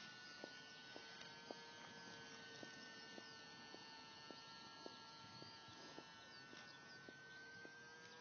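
Faint, steady whine of an RC Icon A5 seaplane's electric motor and propeller flying at a distance, its pitch wavering slightly. A light tick repeats about twice a second alongside it.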